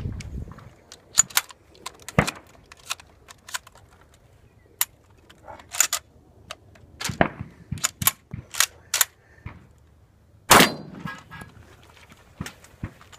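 Shotgun shots during a timed match stage: three heavier shots about two, seven and ten and a half seconds in, the last the loudest, among many lighter sharp clicks and knocks.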